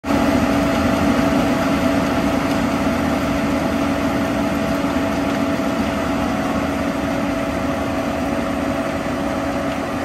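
Case IH 2388 combine running while harvesting corn: a steady diesel engine and threshing-machine hum with a constant low drone and a higher whine, fading slightly as it pulls away.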